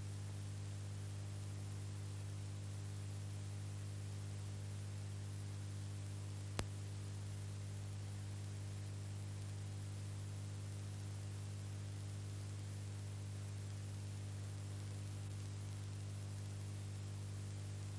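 Steady low electrical hum under a constant hiss, with no sound from the scene itself, as the footage is silent. A single sharp click about six and a half seconds in.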